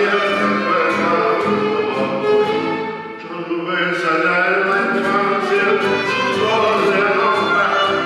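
A man singing a song accompanied by violin and acoustic guitar, with a short lull about three seconds in.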